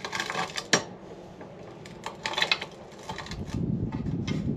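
Steel bench vise and a homemade rock-crushing jig worked by hand: sharp metallic clicks and knocks as the vise handle is moved, then from about three seconds in a steady gritty crunching as rock is ground down in the jig.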